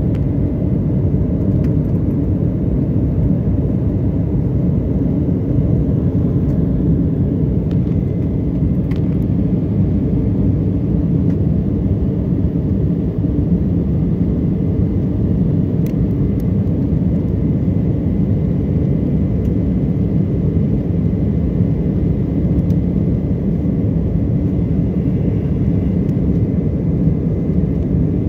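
Jet airliner cabin noise: a steady, even rumble of engines and airflow heard from inside the cabin, with a faint thin high tone running under it.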